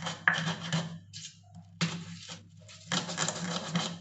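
Garlic, salt and pepper being ground with a pestle and mortar: a gritty rubbing and scraping, with short pauses about a second in and again near the middle.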